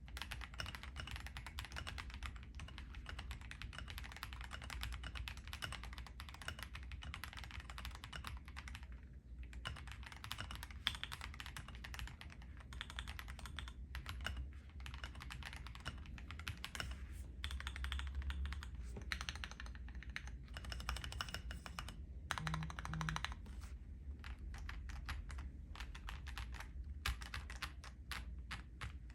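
Typing on an Akko ACR Pro 75 mechanical keyboard: a fast, continuous run of key clicks with a few brief pauses, over a steady low hum.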